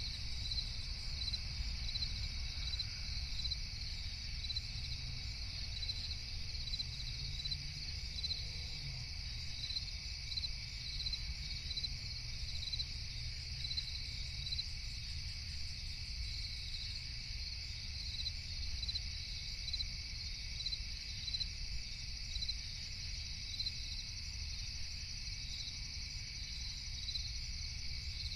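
Night crickets chirping steadily in a continuous chorus, over a low, steady rumble.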